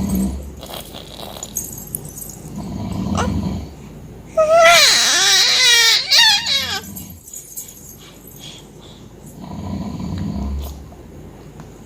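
Five-month-old baby vocalizing: low grunting noises, and about four seconds in a loud, high-pitched, wavering squeal lasting a couple of seconds.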